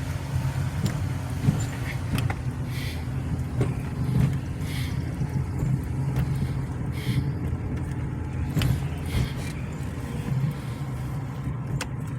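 Car engine and road noise heard from inside a moving car: a steady low rumble, with a few short hissy swells and a couple of sharp knocks.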